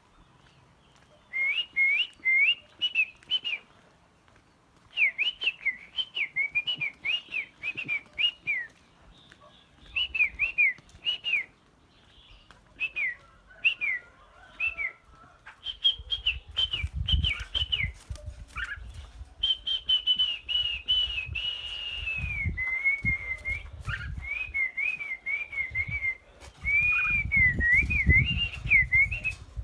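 Caged songbird singing in repeated short phrases of quick whistled notes that rise and fall, with pauses between phrases. A low rumble runs under the second half.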